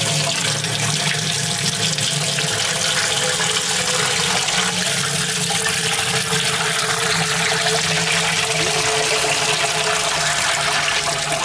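Water running steadily, a constant rushing flow with a low steady hum beneath it.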